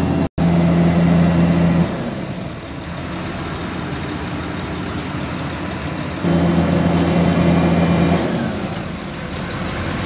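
Heavy diesel machinery running steadily: a Vögele Super 1800-3 tracked asphalt paver with the tipper truck feeding it, giving a low engine hum. The hum grows louder for about two seconds near the start and again from about six to eight seconds in, and the sound cuts out for an instant just after the start.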